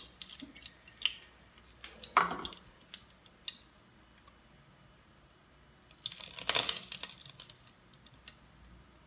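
Hot oil in a lidded frying pan spitting and crackling in scattered pops as balls of ice cream deep-fry, with a quiet lull in the middle and a denser spell of crackling about six seconds in.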